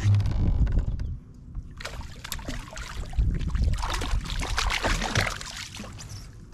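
Low knocks at the start, then about three seconds of water splashing as a hooked bass thrashes at the surface beside a fishing kayak and is grabbed by hand and lifted out.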